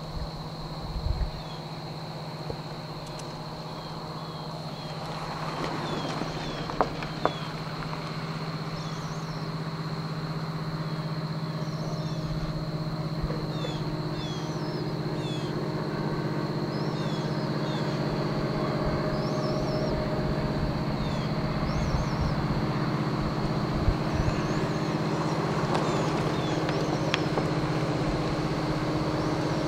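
Diesel locomotive engine running steadily and slowly growing louder, with birds chirping and a few sharp clicks.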